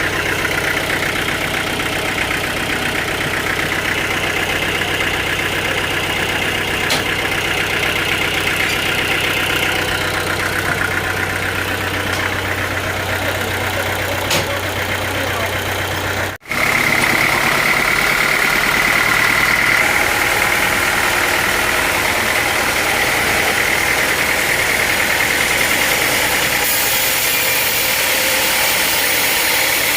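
Sawmill machinery running steadily, an engine-like hum. About halfway through it drops out for an instant, and after that a higher whine is stronger.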